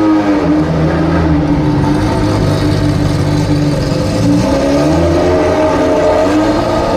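Ferrari F50's V12 engine pulling away at low speed, its note dipping about half a second in and rising again near four and six seconds in as the throttle is worked.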